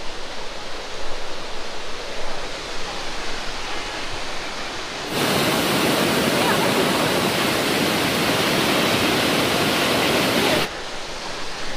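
Steady rush of water. About five seconds in it gives way abruptly to a much louder, even rush from a tall mountain waterfall, which cuts off just as suddenly about five seconds later.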